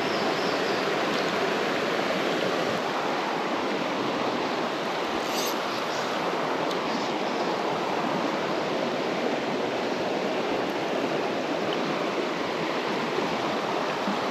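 Mountain trout stream running over rocks and riffles: a steady, even rush of water.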